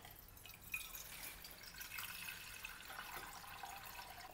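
Water poured in a thin stream from a glass jug into an empty cooking pot, a faint, steady splashing trickle.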